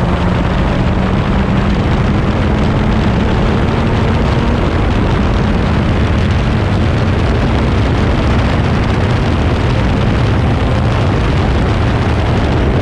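Crossle 32F Formula Ford's 1600 cc Ford Kent four-cylinder engine under full throttle, its pitch rising slowly through the first few seconds as the car accelerates down the straight, with heavy wind rush from the open cockpit.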